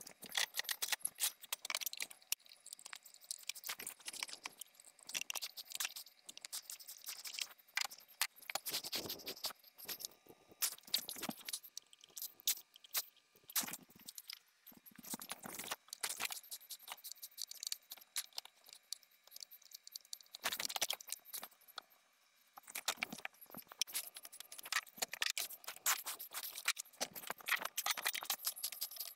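Crescent wrenches and metal fittings clinking and scraping as the old kitchen faucet's supply-line connections are worked loose: a busy, irregular run of small metallic clicks and rattles, with short lulls about halfway through and again about three quarters of the way.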